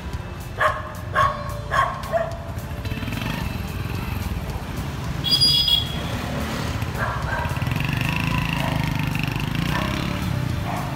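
Honda Win 100's small single-cylinder two-stroke engine running as the motorcycle pulls away and rides off down the street. Four short loud calls come near the start, and a brief high tone about halfway through.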